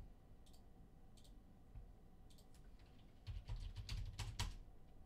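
Computer keyboard being typed on: a few scattered key taps, then a quick run of keystrokes about three seconds in.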